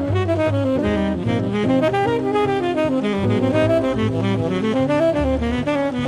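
Live jazz trio: a saxophone plays a fast, winding melodic line over a walking upright bass, with an archtop jazz guitar in the band.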